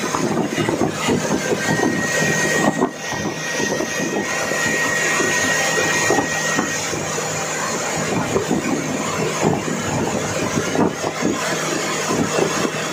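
Motorboat under way: the engine runs steadily beneath the loud rushing and splashing of water spraying off the hull, with wind on the microphone.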